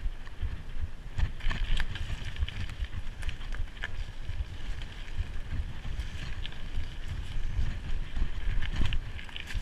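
Mountain bike ridden at speed over a rough trail, heard from a handlebar-mounted action camera: wind buffeting the microphone with a steady rumble, and the bike rattling and clicking over the ground.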